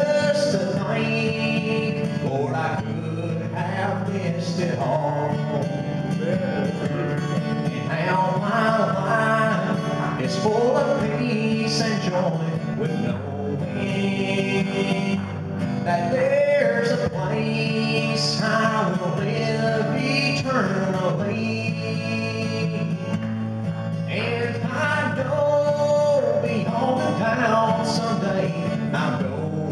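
A man singing a country gospel song into a microphone, accompanied by acoustic guitar, with steady low bass notes under the melody.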